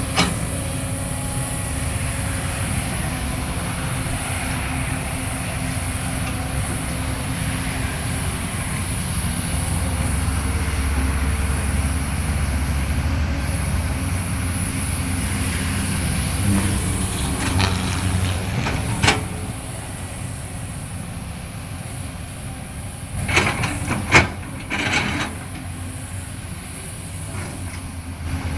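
Caterpillar 320D excavator's diesel engine running steadily, louder for a few seconds about a third of the way in. Several sharp metallic clanks and scrapes come near the end, the loudest of them about 24 seconds in.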